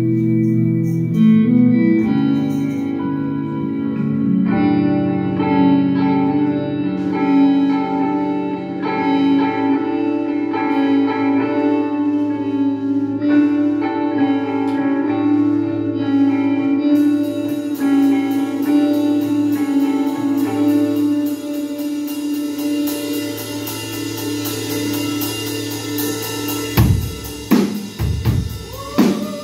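Live instrumental rock band: electric guitars ring out layered, sustained notes over bass. About two-thirds of the way in, cymbals join with a steady fast pulse, and heavy drum hits come in near the end.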